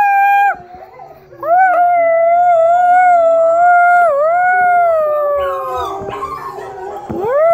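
Long, drawn-out canine howls. One howl ends about half a second in. After a short pause a second begins and is held for about four seconds, slowly falling in pitch, with a lower howl sounding under it. A new rising howl starts near the end.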